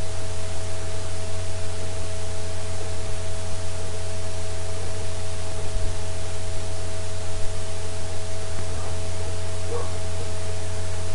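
Steady hiss with a low electrical hum and two faint steady tones: the background noise of a voice-recording microphone setup, with no other sound.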